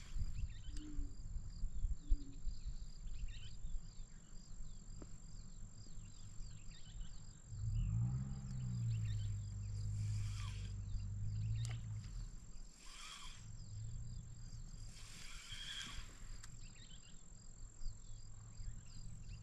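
Wind rumbling on the microphone, with a spinning reel being cranked in three short spells to retrieve the line.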